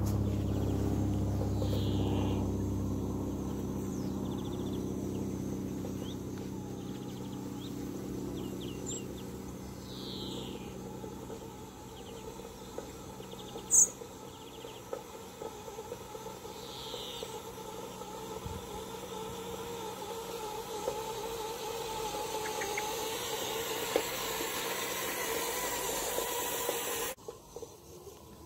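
Small electric motor and drivetrain of a WPL B24 GAZ 6x6 RC truck whining as it drives, the whine swelling and easing and growing louder later on. A low rumble fades away in the first few seconds, birds give a few short chirps, and there is one sharp click about midway.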